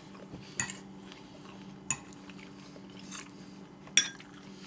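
Cutlery clinking against plates while eating: three sharp clinks, the loudest near the end, over a faint steady hum.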